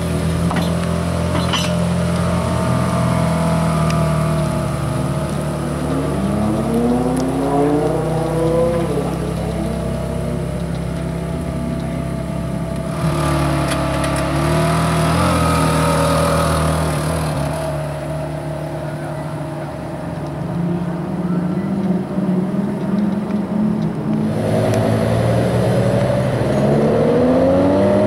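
Ferrari 430 Scuderia's V8 running at low speed as the car pulls away, with two throttle blips that rise and fall in pitch. Near the end a Lamborghini Gallardo Superleggera's V10 takes over, revving up.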